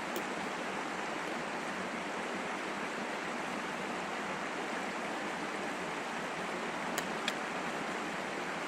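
Steady rushing background noise, with a few faint clicks about seven seconds in.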